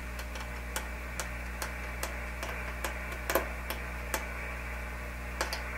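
Receiver static hiss from a QRP radio's speaker over a steady low mains hum, as the L-network tuner is adjusted for a noise peak on 30 meters. Light clicks come about two a second from the tuner's tapped air-wound coil being worked by hand.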